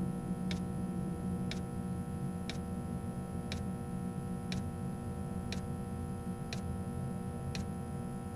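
Steady ticking, one tick about every second, over a low steady hum.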